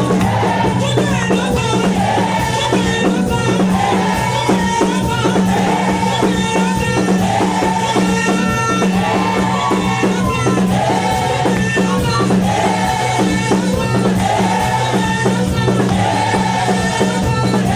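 A gospel choir singing with band accompaniment: voices carry the melody over a steady bass line and a busy shaker and tambourine rhythm.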